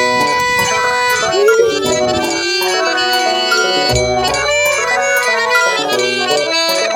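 Micromax Canvas S4 phone ringtone: an instrumental melody that starts suddenly, with a bass part coming in about four seconds in.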